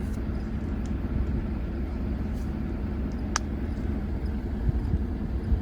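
A steady low rumble, with one faint click about three and a half seconds in.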